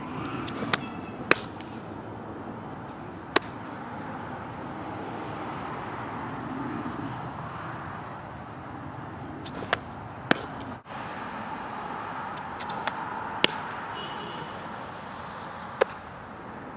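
Fastpitch softballs smacking into a leather catcher's mitt: sharp single pops every few seconds, over a steady outdoor background hum.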